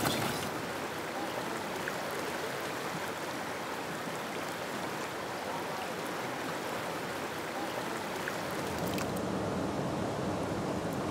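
Flowing river current, a steady rush of water. About nine seconds in it turns lower and duller.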